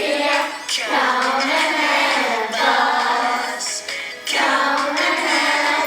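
Children's voices singing a song together, in three long phrases.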